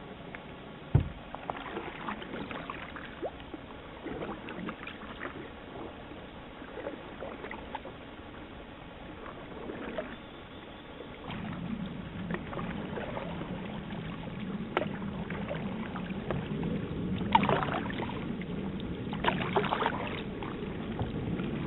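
Canoe paddling on a river: paddle splashes and irregular knocks of paddles against the hull, with a sharp knock about a second in. A steadier low noise joins about halfway through.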